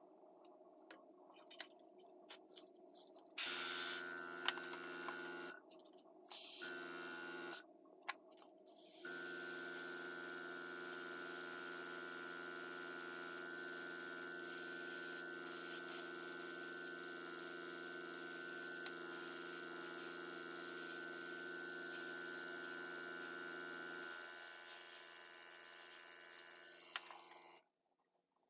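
Airbrush compressor humming steadily under the hiss of air and paint spraying from a gravity-feed airbrush. It starts a few seconds in, cuts out twice briefly, then runs without a break and stops near the end.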